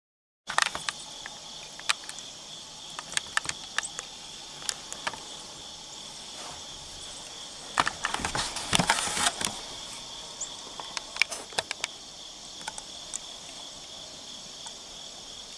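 Crickets chirring steadily in the field, starting about half a second in. Scattered sharp clicks and small knocks stand out over them, with a cluster about eight to nine seconds in.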